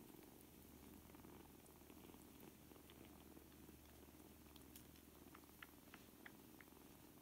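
Faint, steady purring from a mother cat and her four-week-old nursing kittens. A few tiny ticks come in the second half.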